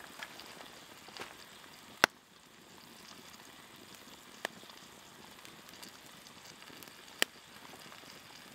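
Wood fire crackling faintly over a soft steady hiss, with three sharp pops a couple of seconds apart.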